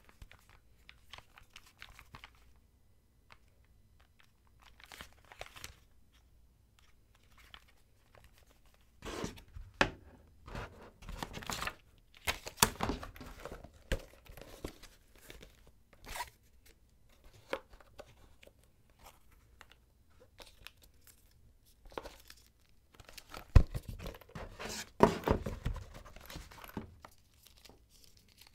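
Packaging of a new pair of headphones being opened by hand: plastic and paper tearing and crinkling in intermittent bursts, with light clicks and knocks from handling the box. The busiest stretches come around ten to thirteen seconds in and again around twenty-four to twenty-seven seconds in.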